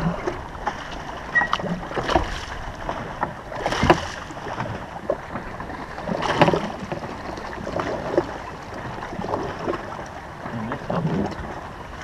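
Water splashing beside a bass boat as a hooked largemouth bass is scooped up in a landing net, with scattered small knocks and two louder splashes about four and six and a half seconds in.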